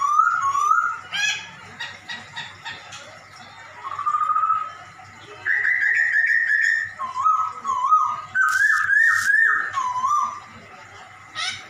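A Poksay Hongkong, a laughingthrush, singing loud whistled phrases: runs of repeated rising-and-falling notes that change pitch from phrase to phrase, with short pauses between. A few harsh, hissing notes come in past the middle and near the end.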